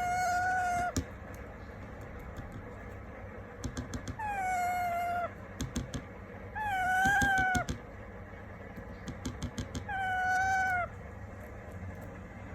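Ring-necked parakeet giving four drawn-out, meow-like calls, each about a second long, falling slightly in pitch then holding. Clusters of short sharp clicks come between the calls.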